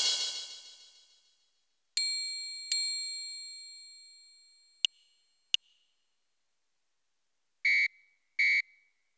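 Casio SA-81 mini keyboard playing its built-in drum-set tone one key at a time through its small speakers. A cymbal rings out, then come two metallic strikes with long ringing decays, two short sharp clicks, and near the end two short high steady tones.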